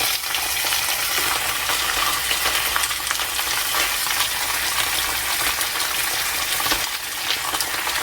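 Onion, garlic and ginger frying in a hot pan, a steady sizzling hiss with fine crackles.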